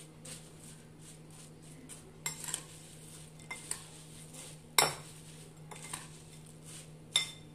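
Metal spoon stirring a dry puffed-rice and namkeen mix in a glass bowl, with scattered clinks of the spoon against the glass, the loudest about five seconds in.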